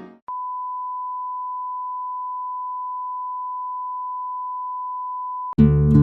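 A single steady electronic beep, one pure unchanging tone held for about five seconds, cutting off abruptly. Guitar music starts suddenly near the end.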